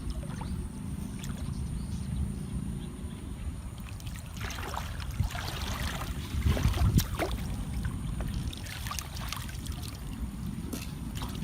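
Water splashing and sloshing in several bursts over a steady low rumble, busiest in the middle.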